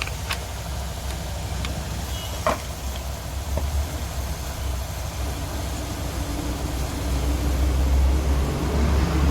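A steady low mechanical hum, louder near the end, with a few sharp clicks and one louder knock of metal parts being handled about two and a half seconds in.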